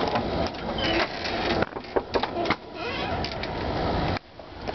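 Storm door being handled at its latch: clicks and rattles of the handle and door among rustling noise, cutting off abruptly near the end.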